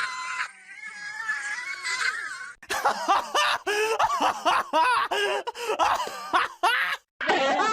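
Animated cartoon character's laughter, a fast run of high-pitched choppy laughs that starts about two and a half seconds in, after a held, wavering high note; a new burst of laughing starts near the end.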